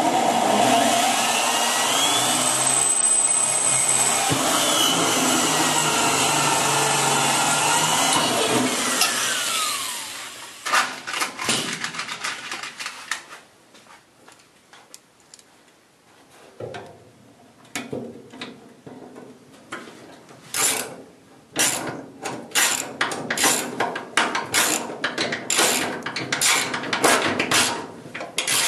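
Electric drill running steadily under load, its bit boring into a sheet-steel panel, and stopping about ten seconds in. Then come short scraping and clicking strokes of a hand tool on metal, sparse at first and quicker and closer together over the last several seconds.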